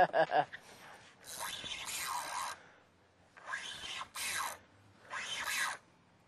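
Spinning fishing reel on light braided line, rasping in three bursts about a second long each while a hooked fish is being fought.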